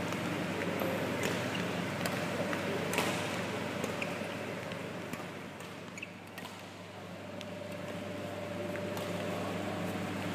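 Badminton racket strikes on shuttlecocks during a fast feeding drill: sharp, irregularly spaced clicks over a steady background hum.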